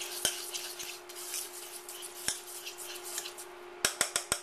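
Wire whisk stirring thick béchamel sauce in a stainless steel saucepan, scraping with small ticks against the metal. Near the end, a quick run of sharp metallic taps, about six a second, as the whisk is knocked against the pan. A steady low hum runs underneath.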